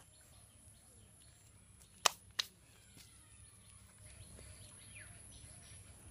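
Two sharp clicks about a third of a second apart, some two seconds in, over a quiet outdoor background with faint bird chirps.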